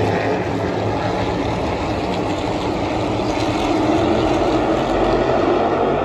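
A field of NASCAR V8 stock cars rolling past in single file at caution pace behind the pace car, making a steady, even engine drone.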